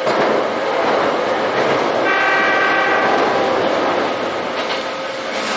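Electric commuter train running over a steel truss bridge, heard from inside the driver's cab as a loud, steady rumble. About two seconds in, the train's horn sounds for about a second and a half as a warning while it approaches a tunnel.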